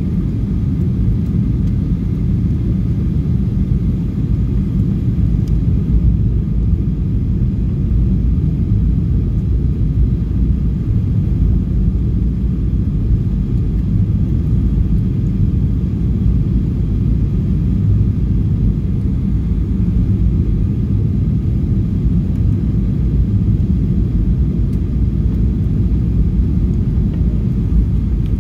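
Steady low cabin rumble inside a Boeing 737-800 on its descent: the CFM56-7B engines and airflow over the fuselage, unchanging, with faint steady tones above the rumble.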